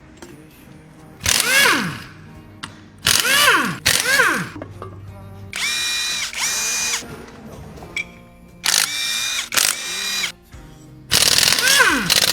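Handheld electric power tool run in five short bursts during engine teardown, its motor whine falling in pitch as each burst winds down.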